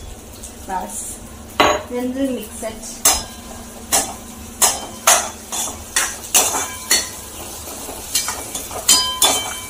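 Steel spatula scraping and clinking against a steel wok while vegetables are stirred. The strokes are sharp and irregular, coming about every half second to a second from about a second and a half in.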